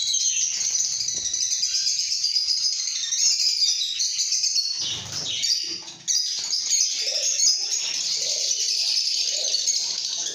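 A flock of lovebirds chirping and chattering together in a dense, high-pitched, unbroken stream of overlapping calls. The chatter briefly fades about six seconds in, then starts again abruptly.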